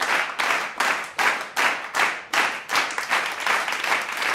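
Rhythmic hand clapping in a steady beat, about three claps a second.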